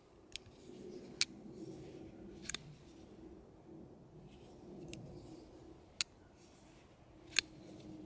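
Kansept Bulldozer folding knife with a titanium handle being flicked open and closed: about half a dozen sharp metallic clicks, one doubled, as the blade snaps open and shut.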